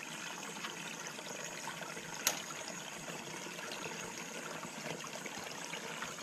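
Shallow rocky stream trickling, with small splashes and drips as hands grope through the water. A single sharp click about two seconds in.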